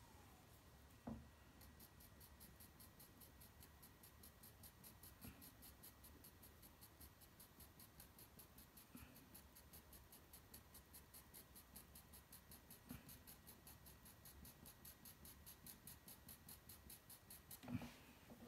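Coloured pencil scratching faintly on toned paper in quick short hatching strokes, about four a second, with a few soft taps in between. The stroking stops near the end.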